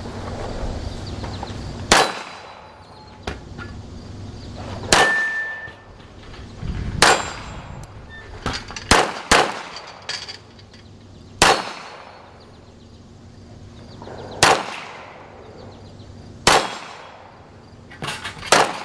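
Semi-automatic pistol shots fired one at a time, about ten of them at uneven intervals of one to three seconds, several with a clang or ding as bullets strike steel plate targets. Two shots come close together near the end.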